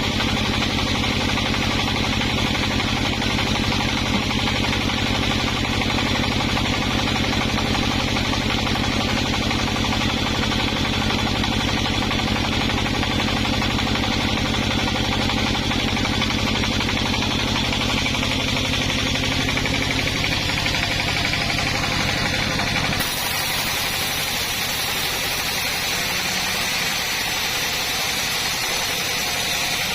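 Sawmill engine running steadily with a vibrating hum. About three quarters of the way through, the low hum cuts off abruptly, leaving a steady hiss.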